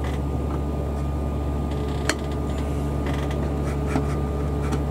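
Steady low machine hum in the room, with a couple of light clicks from hard plastic model kit parts being handled.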